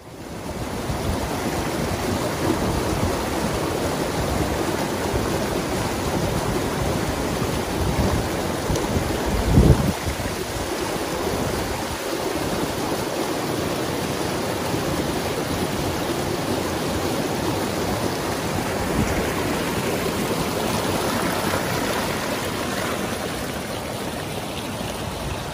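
Moorland stream of peat-brown water rushing and splashing over rocks, a steady sound of running water, with a brief low thump about ten seconds in.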